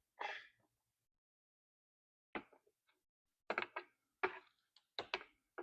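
Scattered sharp clicks and taps of small parts and tools being handled as a fuel line is worked through a chainsaw's plastic housing: about five short clicks in the second half, with dead silence between them.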